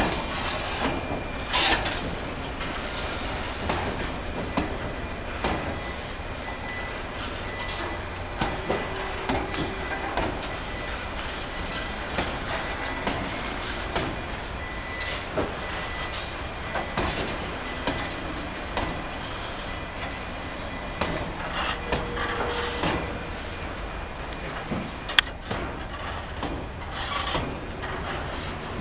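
Freight train of heavy flat wagons loaded with M1 Abrams tanks rolling past, a steady rumble broken by irregular clanks and knocks from the wheels and couplings. A faint, steady high tone runs through the middle.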